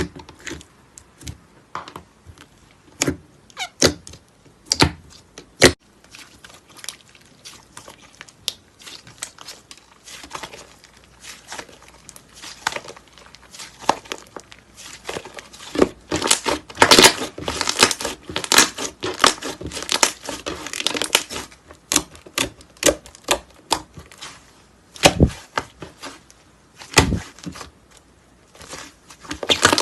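Slime being squished and handled, giving an irregular run of sharp clicks, pops and crackles that come thickest about halfway through, with two duller thuds near the end.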